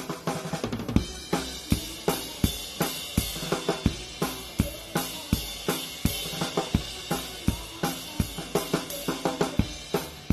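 Live band music with the drum kit to the fore: a steady driving beat of bass drum and snare strikes, about two to three a second, under a continuous wash of cymbals and hi-hat.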